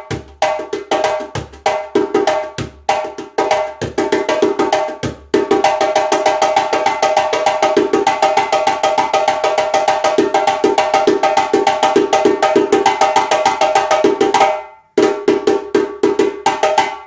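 Freshly reheaded hare djembe from Guinea played as a sound check, with solo phrases of ringing tones and sharp slaps. About five seconds in, the phrases break into a fast, continuous roll of strokes that lasts about nine seconds. After a brief stop, a few more quick phrases follow.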